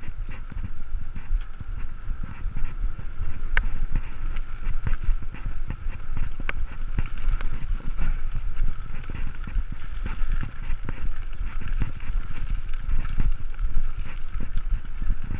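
Specialized Stumpjumper mountain bike rattling and clattering as it is ridden fast over paved paths: rapid, irregular clicks and knocks over a steady low rumble of tyres and wind.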